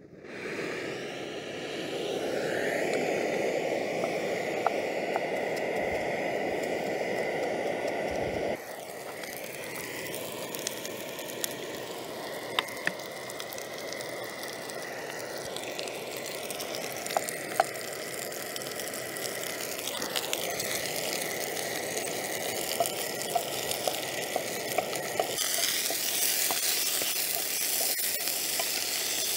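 Sliced green peppers and onions sizzling in a frying pan on a propane camp stove, with light clicks from a wooden spatula stirring them. The sizzle is louder for about the first eight seconds, then drops to a quieter steady hiss.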